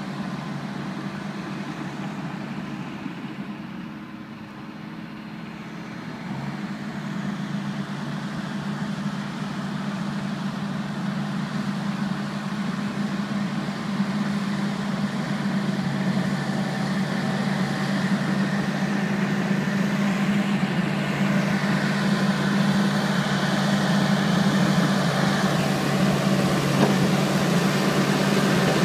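Crawler dozer's diesel engine running steadily as the machine pushes and levels soil with its blade. It grows louder as the dozer comes closer.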